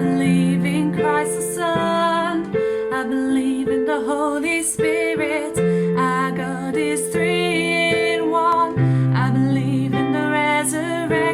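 A worship song: a woman singing over piano and guitar accompaniment.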